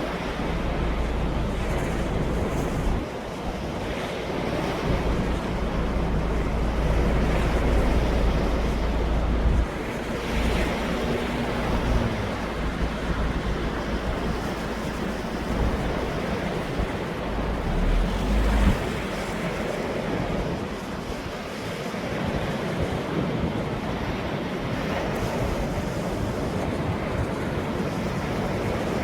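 Ocean waves washing in and breaking in a continuous surf. Wind buffets the microphone with a low rumble through the first third and again briefly just past the middle.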